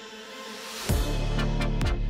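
Electronic background music: a quieter held passage swells, then about a second in a beat drops in with deep bass and kick drums.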